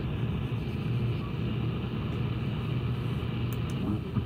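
Static from an SDRplay RSP2 software-defined radio tuned in the longwave band: a steady, muffled rumble of noise with a low hum.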